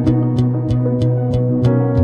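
Background music: held chords over a steady bass, with a light tick about three times a second and a chord change near the end.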